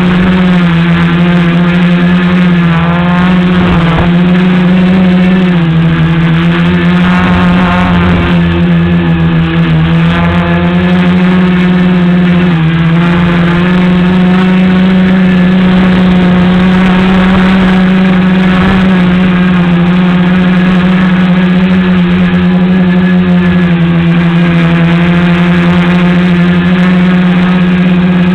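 Tricopter's electric motors and propellers droning steadily in flight, the pitch shifting up and down a little several times as the throttle changes.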